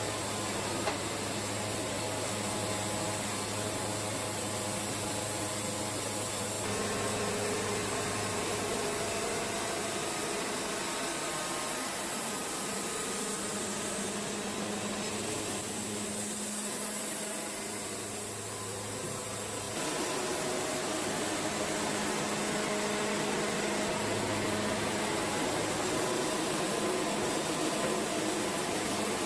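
Wood-Mizer LT70 band sawmill running steadily, its engine humming as the band blade saws eastern red cedar; the sound shifts about 7 seconds in and again about 20 seconds in.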